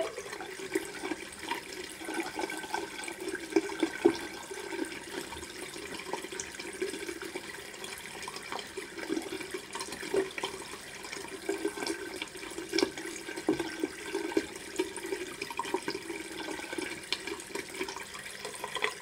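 Water running steadily from a bathroom tap into a sink, with small irregular splashes and drips.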